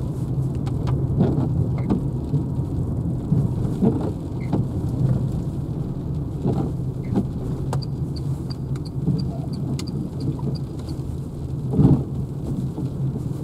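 Inside the cabin of a Renault Zoe electric car driving in heavy rain: steady tyre and road rumble, with rain hitting the windscreen and body in scattered ticks.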